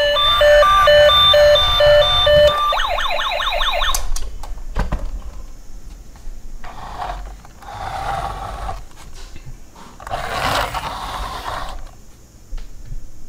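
Toy police SUV's electronic siren: a repeating beeping tone pattern, then a fast warbling wail that cuts off suddenly about four seconds in. A click and a few quieter scraping noises follow.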